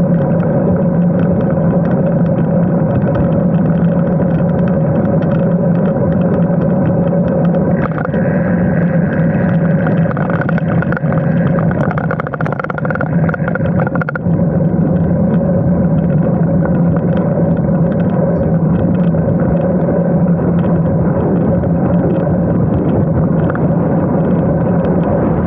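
Steady wind noise rushing over the camera microphone of a moving road bicycle. It eases slightly for a couple of seconds near the middle as the bike slows through a junction.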